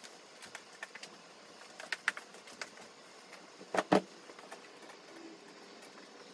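Household items being handled during tidying: scattered light clicks and taps, then two louder knocks close together about four seconds in.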